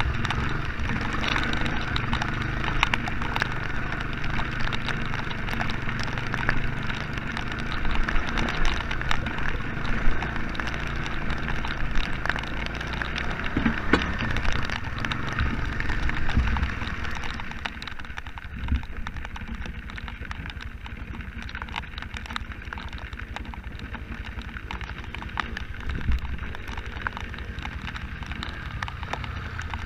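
Honda Fourtrax ATV's single-cylinder four-stroke engine running steadily, dropping to a quieter idle a little past halfway, with rain ticking throughout.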